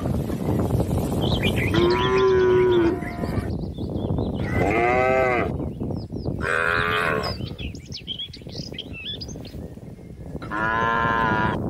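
Cattle mooing four times, each call about a second long, some arching up and down in pitch, with faint bird chirps in the gaps.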